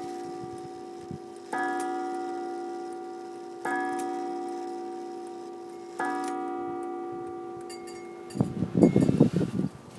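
William L. Gilbert eight-day mantel clock striking the hour on its coiled wire gong. Three ringing strokes about two seconds apart, each dying away slowly, are the last three of the four strokes for four o'clock. Loud rustling and bumping noises take over near the end.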